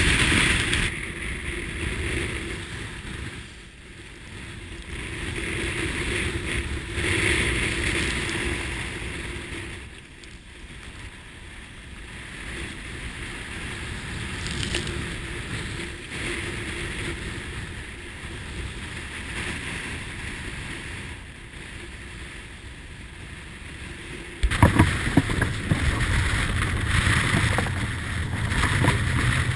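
Rushing water and wind around a Beneteau 40.7 yacht sailing hard in heavy seas, swelling and fading every few seconds as waves and spray pass. About 25 seconds in it turns suddenly louder, with a heavy rumble of wind buffeting the microphone.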